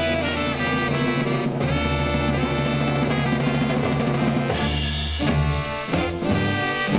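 Instrumental break in a late-1960s blues-rock song with no vocals: a horn section of saxophone and trumpet holding sustained notes over bass and drums.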